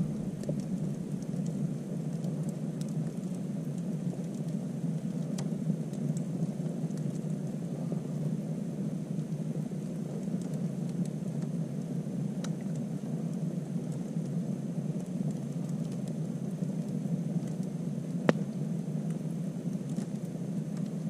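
Self-feeding log campfire burning with a steady rushing sound and occasional sharp pops, one louder pop about three quarters of the way through.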